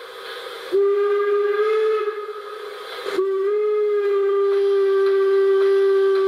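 Steam-locomotive whistle played by the ESU LokSound 5 XL sound decoder in an LGB model of the HSB Neubaulok 99 7237-3 (Schwoboda sound project, from its own recordings). A short blast comes about a second in, and a long, steady blast from about three seconds in, with a hiss between them.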